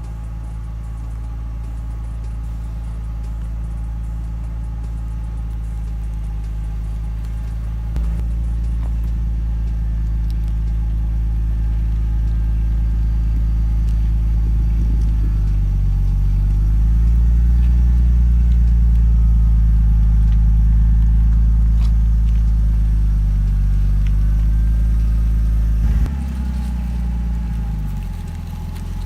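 Pickup truck driving on the road: a steady low rumble of engine and road noise, with the engine note climbing and falling as it speeds up and shifts, growing louder toward the middle and dropping off suddenly near the end.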